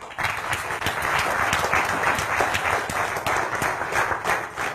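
Audience applauding: many hands clapping at once. The clapping sets in suddenly and starts to thin out near the end.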